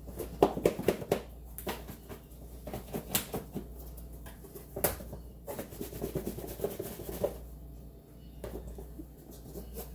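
Pork chops being shaken in flour inside a lidded container: a run of irregular thumps and rattles that dies down about seven seconds in.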